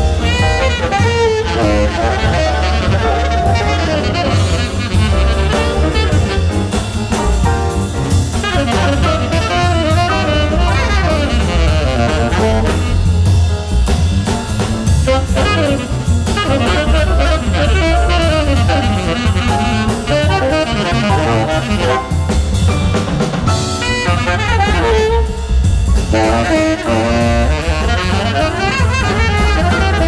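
Jazz quartet playing: a tenor saxophone plays winding melodic lines over drum kit, piano and double bass.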